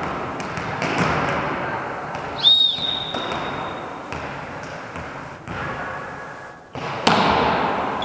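A rally in a racket game in a hall: repeated sharp ball strikes and thuds echoing off the walls, with one sharp impact about two and a half seconds in followed by a short high ringing squeak.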